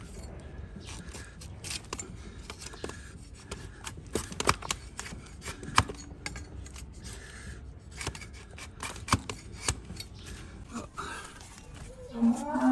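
Hoof-trimming tools cutting and paring a donkey's hoof horn: irregular sharp snips and clicks with scraping between them. Just before the end, a pitched humming sound comes in.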